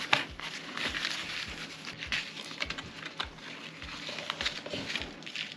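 Packaging being handled and opened by hand: crinkling and rustling with many small, irregular clicks and taps.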